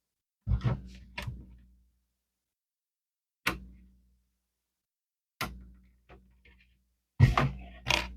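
Lego plastic pieces clicking and knocking as they are handled and pressed onto the build: a few sharp clicks near the start, single ones about three and a half and five and a half seconds in, and a louder cluster near the end.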